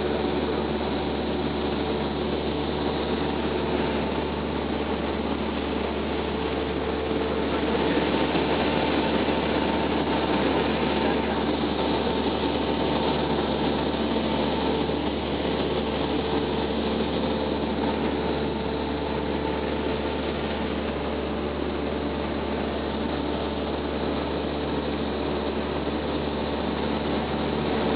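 Cessna 172's piston engine and propeller running steadily in flight, heard from inside the cabin as an unchanging drone over an even hiss of air.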